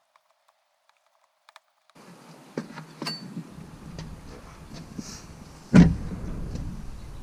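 Silence at first. After about two seconds come scattered clicks and knocks as a motorcycle slip-on exhaust is handled, with one loud clunk about six seconds in as the pipe is set down.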